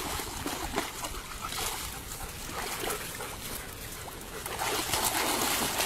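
German shepherds wading and swimming in a shallow pond, the water sloshing and splashing around them, louder near the end.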